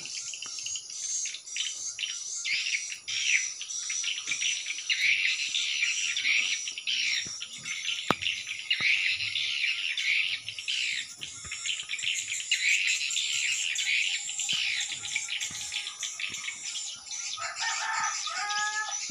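Dense, high twittering of swiftlet calls around a swiftlet nest house, many chirps overlapping without a break. A lower call with stepping pitch comes in near the end.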